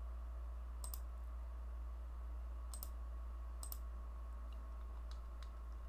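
Computer mouse clicking, a handful of sharp separate clicks spaced about a second apart, some fainter, while chart timeframe options are selected from a dropdown menu. A steady low electrical hum lies underneath.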